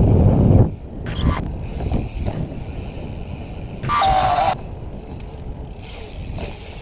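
BMX bike rolling, with low rumbling noise and wind on the microphone. A loud low rumble comes in the first half-second, and a short high-pitched cry about four seconds in.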